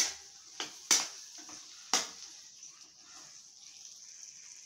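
Spatula knocking and scraping against a pan while stirring carrot slices into a masala, with several sharp strikes in the first two seconds and a faint steady sizzle after.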